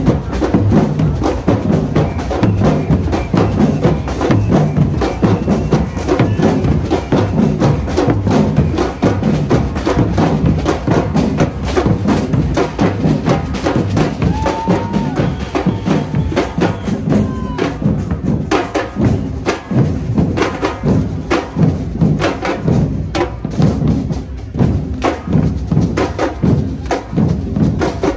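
Loud, drum-heavy music: a dense, fast run of drum hits and sharp woodblock-like clicks.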